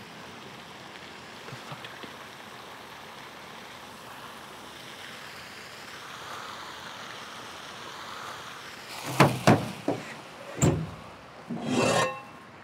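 Steady outdoor background hiss, then a few sharp knocks and a louder scraping, rustling sound near the end.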